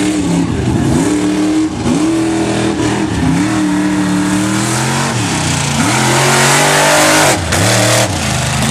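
A 2½-ton truck engine revving hard under racing load, its pitch climbing and then dropping back several times. A loud rushing hiss builds about six seconds in and cuts off suddenly a little later.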